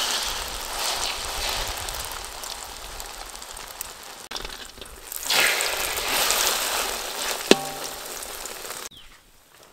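Duck egg omelette sizzling in hot oil in a steel wok, with a metal spatula scraping through it; the sizzling swells louder about five seconds in. One sharp metallic clink of the spatula against the wok comes about seven and a half seconds in, and the sizzle cuts off suddenly near the end.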